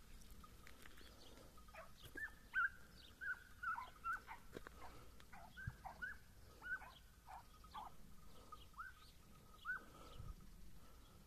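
Hunting hounds baying faintly while running a hare: a string of short yelps, each falling in pitch, coming irregularly about twice a second.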